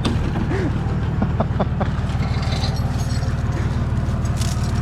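A vehicle engine running steadily with an even low throb, with a few short squeaks about a second and a half in.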